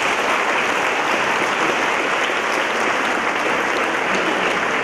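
A large audience applauding: many hands clapping in a steady, dense patter.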